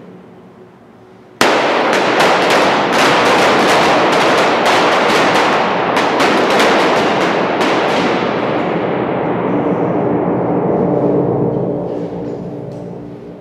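Dense volley of blank gunshots from several guns firing at once, starting suddenly about a second and a half in, echoing off the concrete of a parking garage, then thinning out and dying away over the last few seconds.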